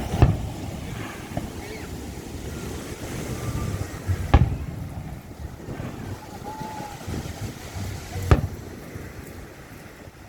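Fireworks going off: three sharp bangs about four seconds apart, over a steady background of voices and wind noise.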